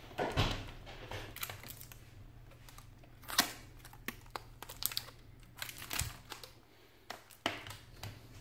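Handling noise from an Asus ultrabook's parts being lifted, turned and set down on a wooden table: scattered clicks, knocks and rubbing, with the loudest knocks about half a second and about three and a half seconds in.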